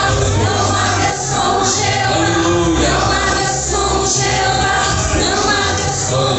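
Choir singing a gospel song over amplified accompaniment with a strong steady bass.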